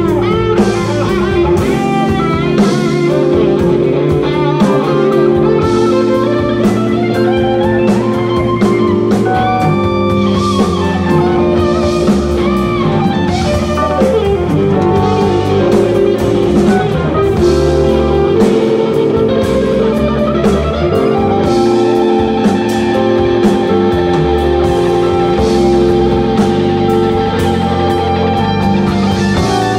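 Live instrumental band: an electric guitar plays a lead melody with gliding, bent notes over electric bass and drum kit.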